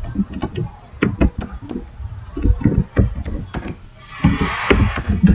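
Computer keyboard being typed on: quick, irregular key clicks, with a short hiss about four seconds in.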